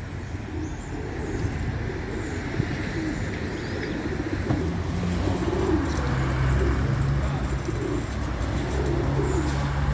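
Several pigeons cooing over and over in low, soft, rounded calls, with a few faint higher chirps of small birds. A steady low hum comes up underneath about halfway through.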